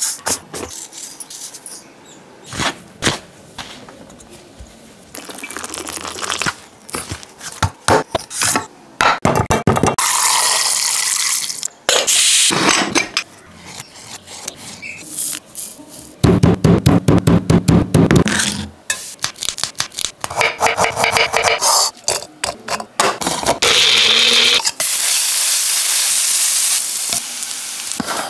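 Kitchen food-preparation sounds: many sharp knocks and clicks of utensils and food, with a fast run of knocks a little past the middle, and several stretches of steady hissing.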